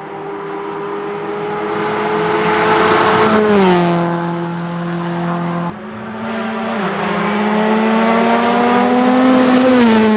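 Rally car engine at high, steady revs, growing louder as it approaches and dropping in pitch as it passes about three and a half seconds in. After an abrupt cut, a second rally car approaches the same way and passes near the end.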